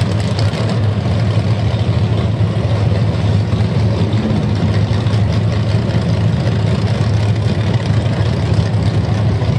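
Drag race cars' engines idling loudly and steadily on the start line, a deep, evenly pulsing engine note with no revving.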